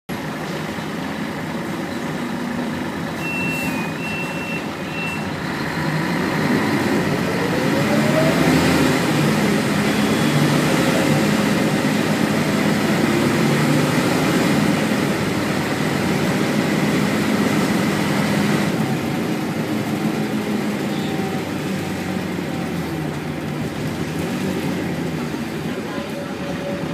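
Inside a Scania L113CRL bus, its 11.9-litre Scania DSC11 diesel engine and automatic gearbox running with road noise under way. The engine pitch rises and the cabin gets louder about six seconds in as the bus picks up speed, then holds at a steady drone. A few short high beeps sound between about three and five seconds in.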